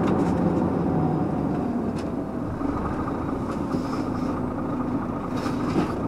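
Swiss Army IVECO 6x6 truck driving uphill loaded to about 19 tonnes, its diesel engine running steadily under the road noise. The sound eases slightly over the first couple of seconds, then holds steady.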